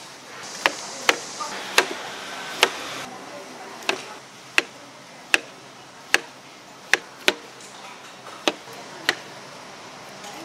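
Kitchen knife chopping through fresh fruit onto a cutting board: about a dozen sharp knocks at an uneven pace, roughly one every half second to a second.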